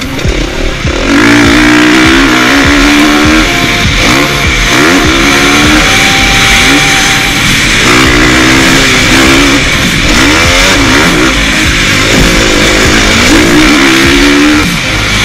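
KTM 450 SX-F single-cylinder four-stroke motocross engine at full race pace, heard close up from the bike. Its pitch climbs and drops over and over as the throttle is worked round the track.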